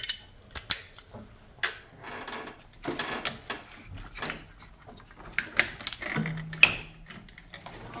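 Irregular clicks and taps of a hand tool working the nuts on a fuse box's power-wire terminals.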